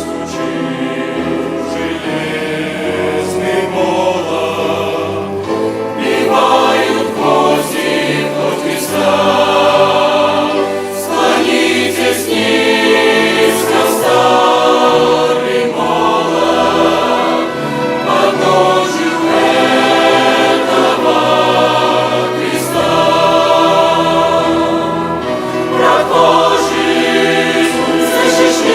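Chamber choir singing a Russian hymn in phrases, accompanied by a violin orchestra.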